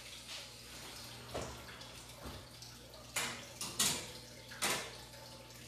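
A metal baking sheet going into a wall oven, then the oven door shutting: three sharp metallic clanks between about three and five seconds in, over a faint steady hiss.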